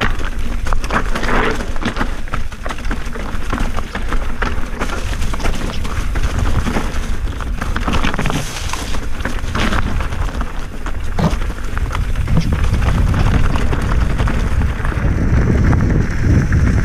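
Mountain bike riding over rough, loose, rocky trail: tyres crunching over stones and the bike rattling with many short knocks, under a steady rumble of wind on the microphone.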